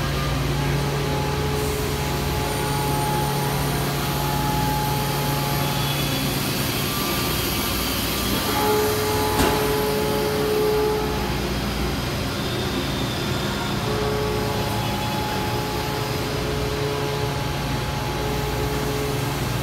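Steady mechanical hum of a powered-up Mazak FH480X CNC horizontal machining center, with faint whining tones that come and go and one sharp click about nine seconds in.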